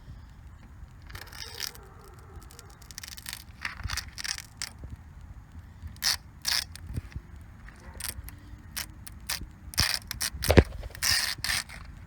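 Irregular scraping, rustling and crinkling handling noises in short bursts, with a sharp knock about ten and a half seconds in.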